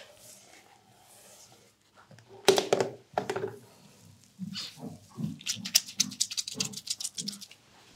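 Wet hair and scalp squelching under hands scrubbing and squeezing over a sink: a few louder wet splats about two and a half seconds in, then a quick run of short rhythmic squishes, about three a second, in the second half.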